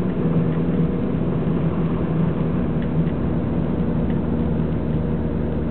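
Car engine running steadily with a low drone and road noise, heard from inside the moving car's cabin.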